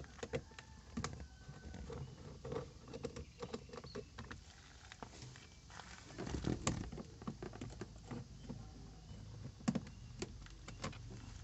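Irregular clicks and light knocks of a hand tool working the bolts on a car's lower dashboard cover, with a louder clatter about six to seven seconds in and a sharp click near ten seconds.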